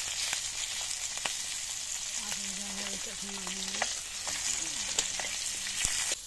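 Whole bata fish frying in hot oil in a wok, sizzling steadily, with a steel spatula clicking and scraping against the pan as the pieces are turned.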